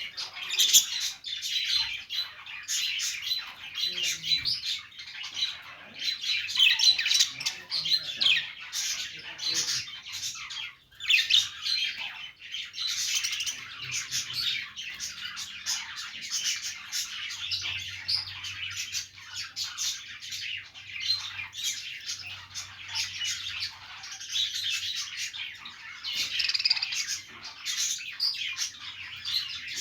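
Small pet parrots chattering, with a steady run of short chirps and squawks that briefly dips about eleven seconds in.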